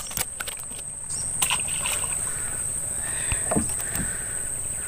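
A released mudskipper dropping into the water with small splashes, over a steady high-pitched insect drone.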